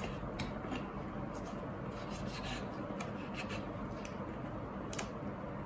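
Knife blade scraping and cutting along the bone in a raw turkey's leg joint: a series of faint scratchy scrapes, with a sharper click about five seconds in.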